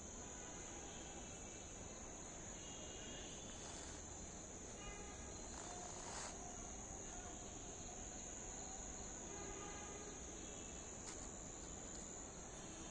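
Faint, steady high-pitched insect chorus, unbroken throughout, over a low background hiss.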